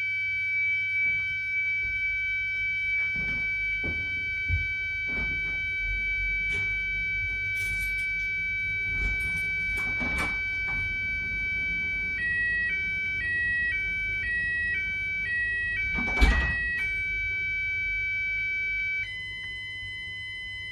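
Texecom alarm keypad sounding its exit-delay tone while the system fully arms: a steady high-pitched tone, then a tone alternating between two pitches for several seconds, then a quieter steady tone near the end. Scattered knocks and thumps under it, with a louder thud about 16 seconds in.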